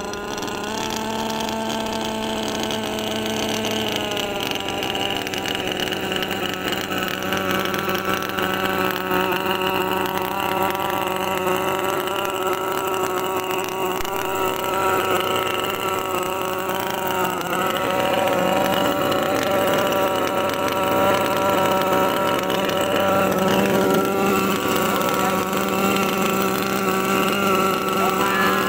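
Small engine of a radio-controlled model barge running steadily, with a slight drop in pitch about four seconds in.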